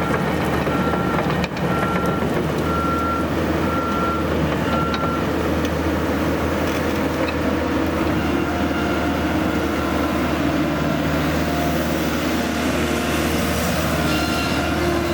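2007 Kobelco SK160LC excavator's diesel engine running steadily, with its travel alarm beeping about once a second until it stops about five seconds in.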